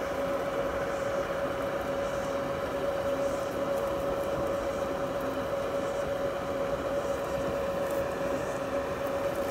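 A steady machine hum with one constant pitch over a faint, even background hiss, unchanging throughout.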